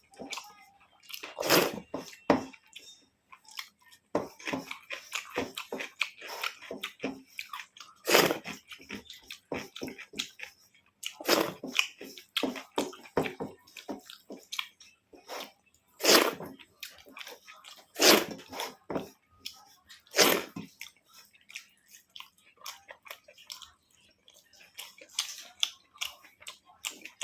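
A person eating rice and curry close to the microphone: wet chewing and small mouth clicks, with a handful of louder smacks scattered through.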